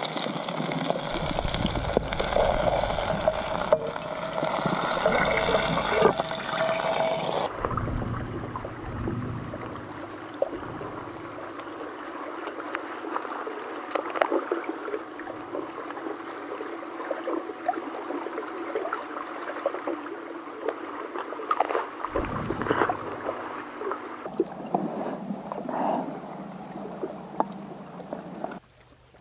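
Fish sizzling as it fries in a small pan over a camp burner, a steady hiss for about the first seven seconds. The sound then changes abruptly to scattered light clinks and scrapes of a metal fork and spoon against a metal mess tin.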